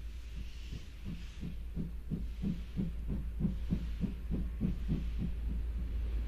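Exhaust beats of ČSD 555.3008, a Škoda-built 2-10-0 freight steam locomotive, working a goods train: a steady rhythm of chuffs, about three to four a second, growing louder over a low rumble.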